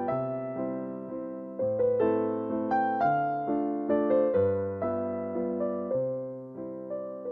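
Background piano music: a slow, gentle melody of struck notes that each fade away, over a bass note that changes every second or two.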